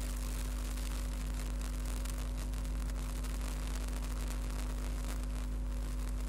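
Steady electrical mains hum, a low drone with a few higher overtones, over an even background hiss.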